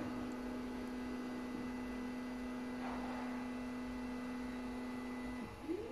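Stepper motors of a 3D printer converted to a pick-and-place machine, whining on one steady tone as the head travels slowly to the camera position. The tone stops abruptly about five seconds in, and near the end a short whine starts to rise in pitch as another move ramps up.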